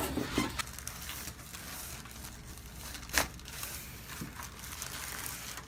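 Soft rustling and crinkling from a patient shifting on a chiropractic treatment table, with one sharp click about three seconds in.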